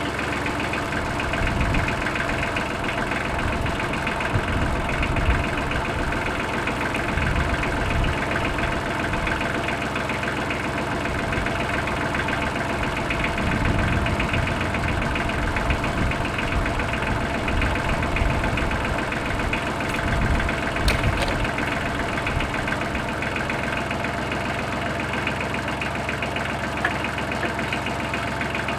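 Tractor engine running steadily at a low, even speed, with a couple of sharp clicks about twenty seconds in.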